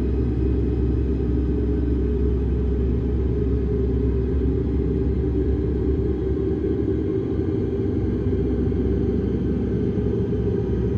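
A steady low rumbling drone, even throughout, with no distinct events.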